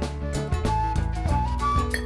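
Background music: an instrumental tune, with a melody line over a steady beat.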